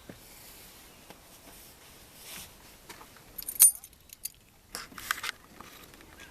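Keys jangling in short metallic clinks, loudest a little over three seconds in, with a few more clinks soon after.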